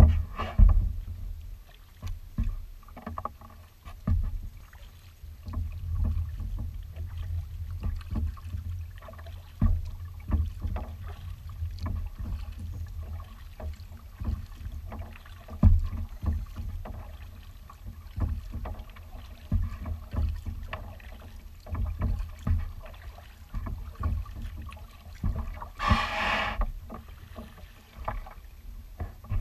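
Kayak being paddled: splashes from the paddle strokes and irregular knocks against the hull. Near the end comes a hiss of about a second as the hull slides up onto the sand beach.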